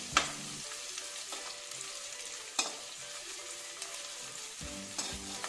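Sliced onions frying in ghee in a nonstick kadhai, sizzling steadily while being stirred with a spatula, being browned. The spatula knocks against the pan twice, sharply about a quarter second in and again about two and a half seconds in.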